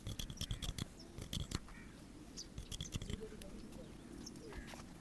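Hair-cutting scissors snipping quickly in bursts of rapid clicks, thinning out toward the end.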